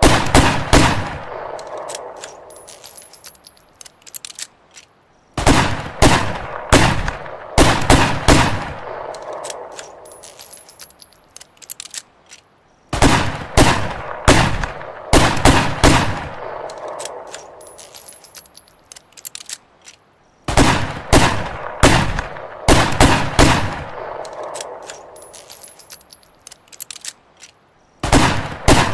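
Ruger Redhawk revolver gunshots: volleys of several rapid shots, each volley followed by a long fading echo, with the same volley repeating about every seven and a half seconds.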